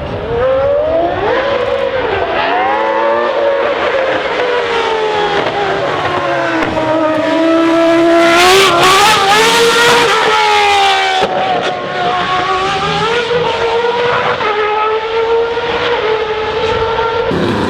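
Formula 1 cars' high-revving racing engines going by, their pitch rising and falling as they rev and shift, with more than one engine heard at once. The loudest pass comes about halfway through.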